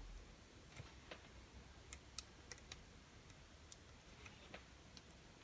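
Faint, irregular clicks of metal multimeter probe tips tapping against the SMD LEDs and their solder pads on an LED light board, about ten small ticks over a few seconds, as each LED is tested in turn.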